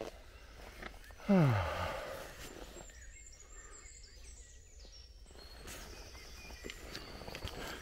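A man's short groan of dismay, one falling sound, about a second in; faint high bird chirps follow over quiet woodland background.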